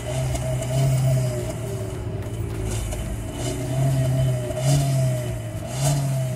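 Volkswagen Polo engine revved about four times and falling back between revs, heard at the tailpipe with the stock muffler still fitted.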